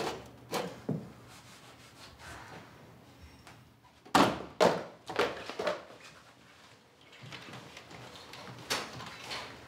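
Drawers of a metal filing cabinet being pulled open and banged shut. There are two light knocks near the start, then four loud bangs in quick succession about four to six seconds in, and one more knock near the end.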